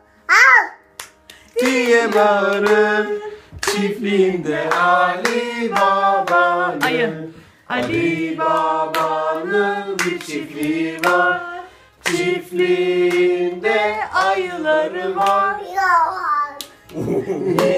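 A voice singing a children's song in phrases of about four seconds, with rhythmic hand claps throughout.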